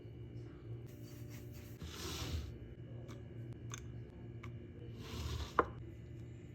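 Kitchen utensil handling: several short scraping strokes and a few light clicks, with one sharp click near the end, over a steady low hum.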